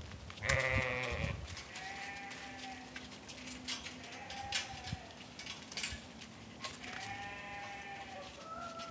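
Lamb bleating: one loud bleat about half a second in, then softer, shorter calls every couple of seconds.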